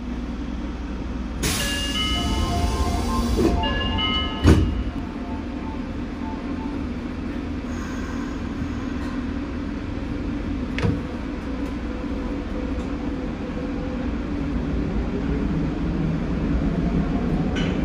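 Higashiyama Line subway train at the platform: a hiss with a short chime of several notes, then a sharp thud a little after four seconds. The train then pulls away, with a steady low rumble and a traction-motor whine that rises in pitch near the end as it gathers speed.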